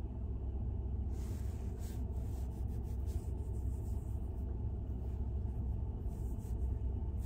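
Steady low road-and-engine rumble inside a moving car.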